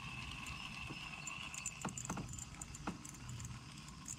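Ultralight spinning reel being cranked during a retrieve: a steady whir that fades out about two and a half seconds in, with a few sharp clicks about two to three seconds in.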